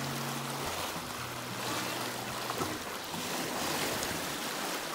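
Sea water rushing and splashing along the hull of a sailboat under way, a steady noise of the bow wave and passing sea.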